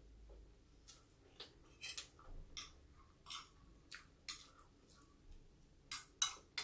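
Faint, scattered short clicks and scrapes of eating: a metal spoon working rice on a ceramic plate, with chewing. The louder clicks come near the end.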